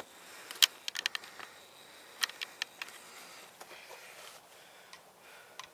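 Irregular sharp clicks and light taps from hands and a tool working on a mountain bike's rear derailleur. The loudest click comes about half a second in, with small clusters over the next two seconds.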